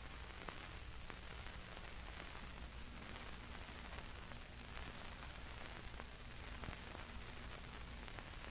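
Steady hiss and low hum of an old film soundtrack, with a few faint clicks, and no narration or music over it.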